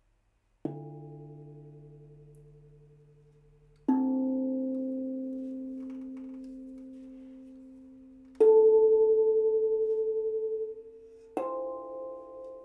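Meinl octave steel tongue drum struck with rubber-tipped mallets: four single notes at different pitches, each ringing out slowly for a few seconds before the next is struck. The third note is the loudest.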